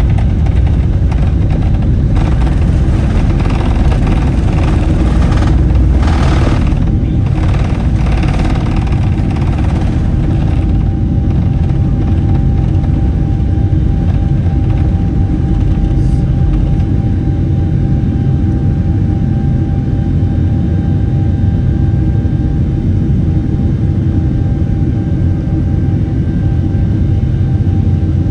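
Boeing 747-8's four GEnx engines at take-off thrust, heard inside the cabin: a loud, steady rumble with a steady fan whine. The rumble and rattle of the wheels on the runway run for about the first ten seconds and stop abruptly as the jet lifts off.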